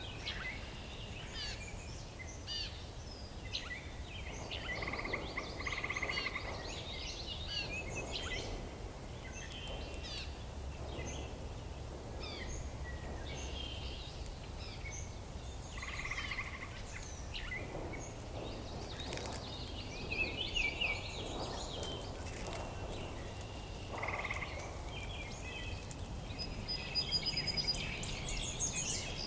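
Many songbirds calling and singing at once, with overlapping chirps, trills and whistles and no one voice holding the lead, over a low steady rumble.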